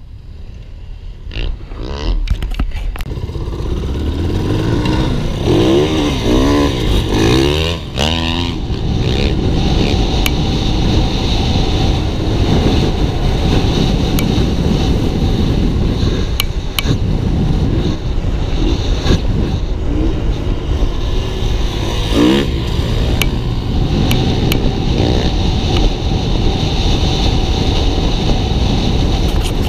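Dirt bike engine heard from on board, accelerating hard with revs climbing and dropping through gear changes, then held at speed, with wind rushing over the microphone. It picks up about two seconds in, with further rev sweeps a few seconds later and again about two-thirds of the way through.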